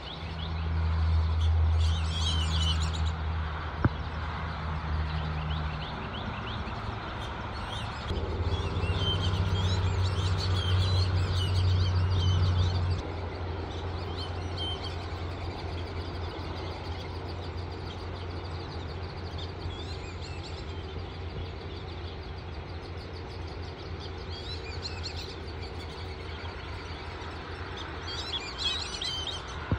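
Black-bellied whistling duck ducklings peeping, high chirps in short runs, over a low rumble that swells in the first few seconds and again from about eight to thirteen seconds in.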